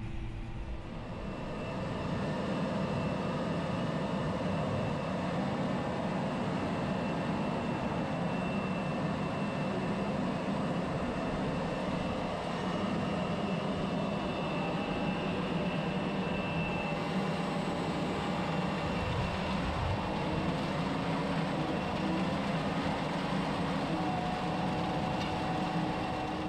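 John Deere 6R 215 tractor's six-cylinder diesel running steadily under load while pulling a no-till drill, getting a little louder about two seconds in.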